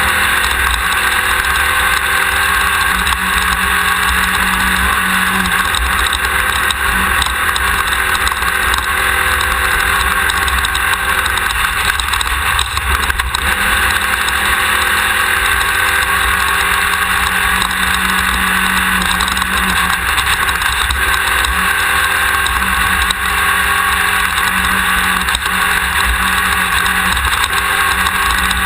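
Class 1600 off-road race buggy's air-cooled Volkswagen engine running steadily and loud at speed, picked up close by a camera mounted at the rear of the car.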